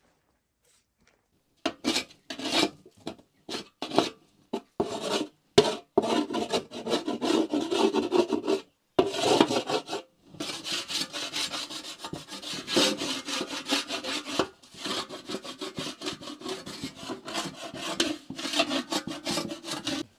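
Rapid, repeated rubbing strokes on a hard surface, starting about two seconds in, with a few short pauses, and cutting off suddenly at the end.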